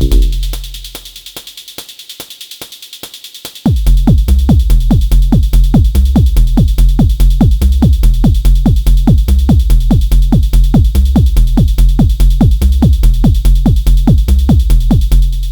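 Techno pattern played on an Elektron Model:Cycles groovebox: rapid percussive synth hits that fall in pitch, over a steady high tone. The kick and bass drop out for the first few seconds, then come back in suddenly about three and a half seconds in.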